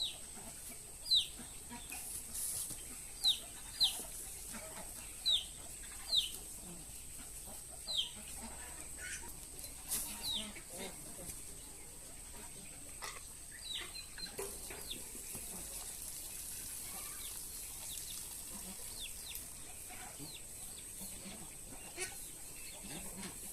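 Bird chirping: short, high notes that fall in pitch, repeated about every one to two seconds and growing sparser after about 14 seconds, over a steady high-pitched hiss.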